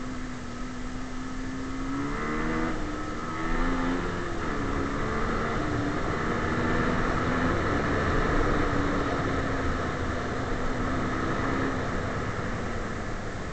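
Rieju Marathon Pro SM 125's 125cc single-cylinder engine running under way, its pitch dipping and rising over a couple of seconds about two seconds in as the revs change, then holding fairly steady. A steady rush of wind noise on the helmet camera runs underneath.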